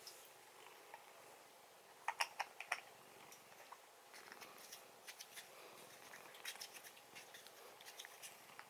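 Faint, irregular small clicks and scratches: a quick cluster of several about two seconds in, then scattered ticks.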